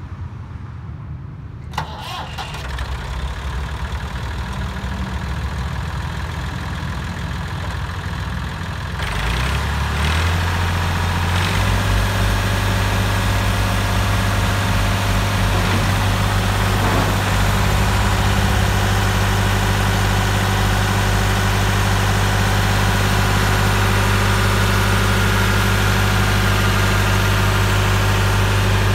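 Three-cylinder Perkins diesel engine of a Massey Ferguson 240 tractor being started: it runs unevenly at first, picks up about ten seconds in, then settles into a steady run.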